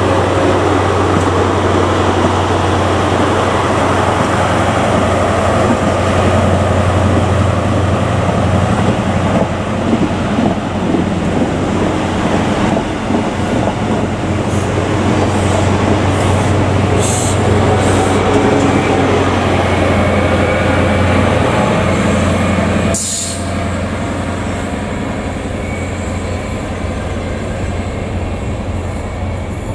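Great Western Railway HST short set with Class 43 power cars, MTU diesel engines, running steadily as the train passes close and moves away, with faint wheel squeal on the curving track. A brief sharp sound about 23 seconds in, after which the train is quieter.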